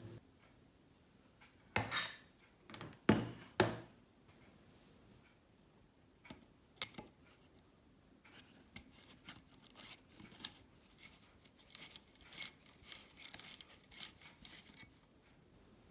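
Hands working on an angle grinder's plastic housing: a few loud knocks and scrapes about two seconds in, then a long run of small clicks and rubbing.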